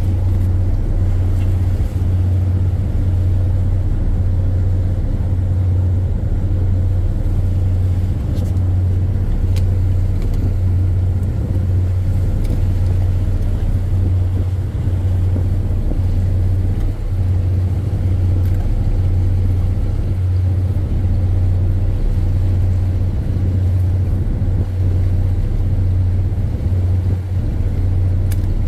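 Steady low drone of a ship's engine running, throbbing in an even, slow beat.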